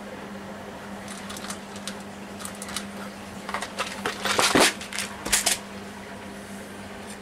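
Scattered light clicks and rattles of small objects being handled on a workbench, with a louder clattering patch a little past the middle and a couple of sharp knocks soon after. A steady low hum runs underneath.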